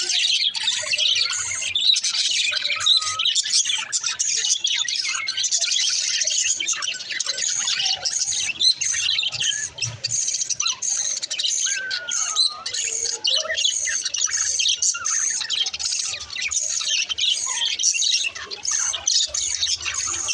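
A flock of budgies chirping and squawking without pause, many high calls overlapping into a dense chatter.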